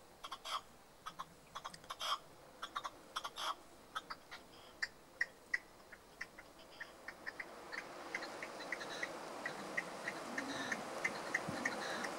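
Red-legged partridge decoy in its cage: irregular soft clicks, then a run of short, evenly spaced soft notes at about three a second, over a hiss that grows louder near the end.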